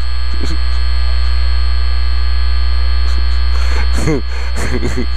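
Dirt bike engine idling steadily, heard through the helmet camera as a loud, even low hum with steady tones above it. Faint voices come in about four seconds in.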